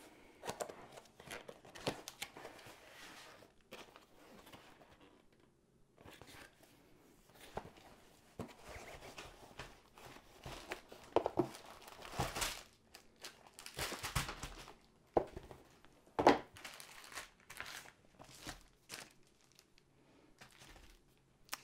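Cardboard kit box and plastic packaging being handled: irregular rustling and crinkling of plastic wrap with short knocks of cardboard on the table as the box is opened and the wrapped canvas roll and bagged tools are taken out. The loudest rustles come about halfway through.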